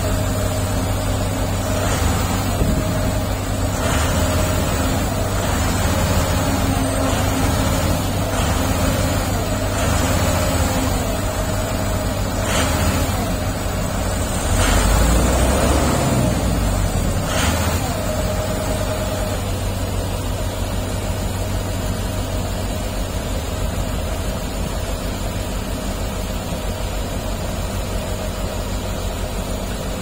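Diesel engines of heavy road-construction machinery running steadily, with a motor grader close by and an excavator working beyond. The rumble swells louder about halfway through, with a few sharp knocks around the middle.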